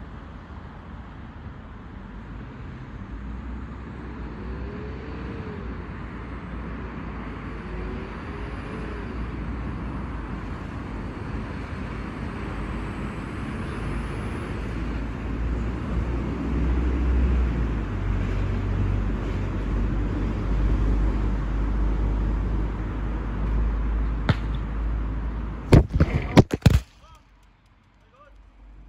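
Steady outdoor rumble and hiss that slowly grows louder. Near the end comes a quick run of sharp knocks and clatter as the phone is handled, and then the sound turns muffled.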